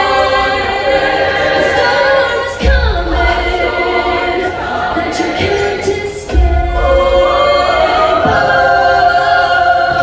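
Mixed show choir singing a pop-style number in harmony, with a deep bass that drops in twice under the voices.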